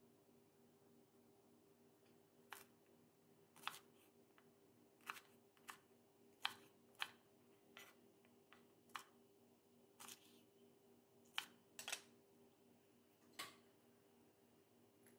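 Chef's knife cutting green onions on a wooden cutting board: about fourteen single sharp taps at uneven intervals, a few in quick succession.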